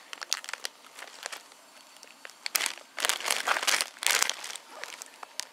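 Crinkly plastic snack bag being handled and turned over in the hand: scattered crackles at first, then a dense run of crinkling through the middle lasting about a second and a half.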